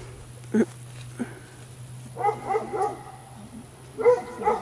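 A dog yips and whines in short runs of high calls, once about two seconds in and again near the end, with a low steady hum underneath.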